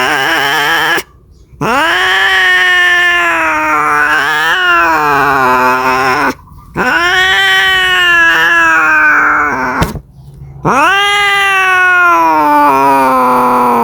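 Domestic cat yowling in long drawn-out caterwauls, the call a cat makes when seeking a mate. Each call lasts several seconds, rising at the start, wavering, then sliding down, with short breaks between. One call ends about a second in and three more follow.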